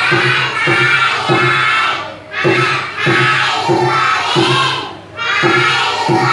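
A group of young children chanting aloud in unison, with evenly paced syllables in short phrases broken by brief pauses.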